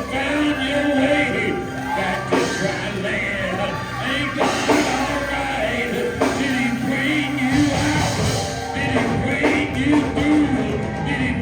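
Church music: singing over instrumental accompaniment with sustained notes and a bass line.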